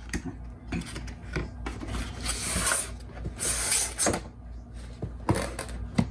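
Cardboard graphics-card box slid out of its cardboard outer sleeve: two long rubbing scrapes, about two and three and a half seconds in, among light taps of cardboard, and a sharper knock near the end as the box is set down.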